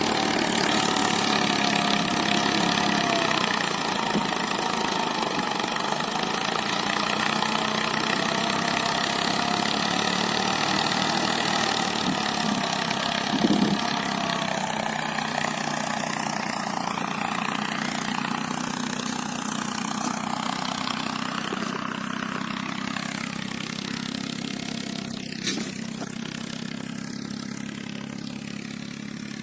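Eicher 480 tractor's three-cylinder 2500 cc diesel engine running steadily, growing gradually fainter. There are two brief knocks, one about halfway through and one near the end.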